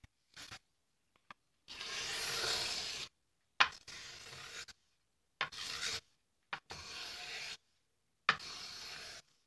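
Small Japanese hand plane (kanna) being pushed along a wooden board, shaving its face into a curve. There are six strokes, each starting sharply and running about a second, with silent pauses between; the longest and loudest comes about two seconds in.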